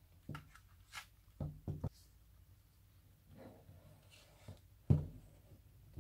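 Handling of kinetic sand with tools: a string of short taps and knocks, a quick cluster of three about a second and a half in and the loudest near the end, with soft scraping and crumbling of the sand between them.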